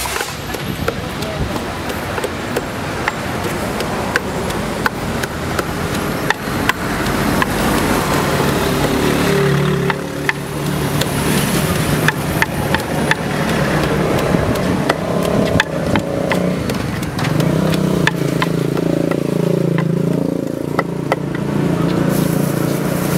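Wooden pestle pounding fresh herbs in a wooden mortar, a series of irregular knocks. An engine runs close by from about a third of the way in, its pitch rising and falling, over background voices.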